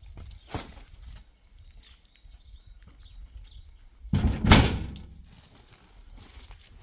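A single loud thud about four seconds in, with a short rough tail, amid faint scattered knocks.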